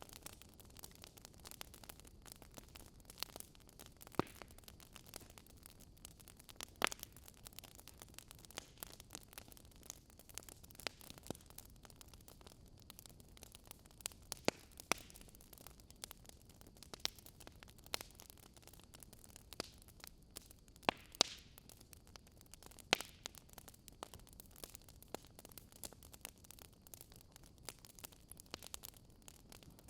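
Wood fire burning in a fireplace: faint steady hiss with irregular sharp crackles and pops from the logs, a few of them louder.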